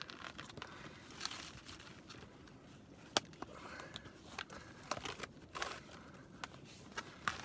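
Rustling and crinkling of clothing and gear being handled, with a few sharp clicks and knocks, the strongest about three seconds in and another near the end.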